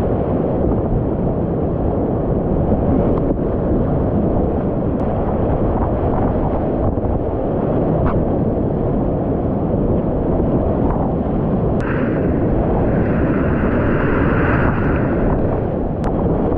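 Loud, steady roar of whitewater rapids churning around a kayak, close on the microphone, with wind and spray buffeting it. A higher hiss joins for a few seconds near the end.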